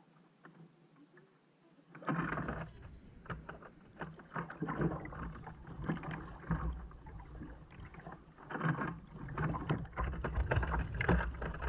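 Kayak paddle strokes splashing and water slapping against the kayak's hull, with wind rumbling on the microphone. The splashing starts about two seconds in, after a quieter stretch.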